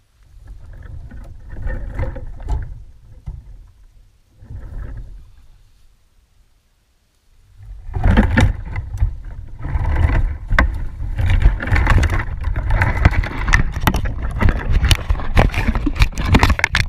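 A GoPro on a Border Collie picking up the dog nosing about in dry sticks and leaf litter, with two short spells of rustling. From about eight seconds in the dog moves off fast, and there is loud continuous rustling with many sharp knocks against the camera.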